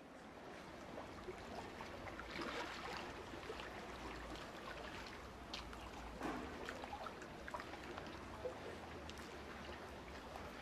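Water running and trickling steadily, with scattered small ticks and splashes.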